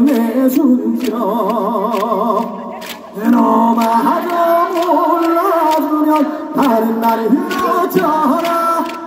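A male trot singer singing unaccompanied into a microphone over the PA. Near the start he holds a long note with wide vibrato, takes a brief break about three seconds in, then sings on in short phrases.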